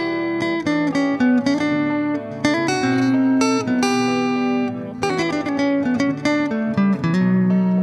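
Background music played on plucked acoustic guitar: a steady run of picked notes and chords.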